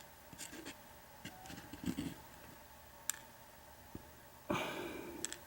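Faint scattered clicks and light taps of small metal lock parts and tools being handled while the padlock is disassembled, with a short louder cluster about two seconds in and a brief rustle near the end.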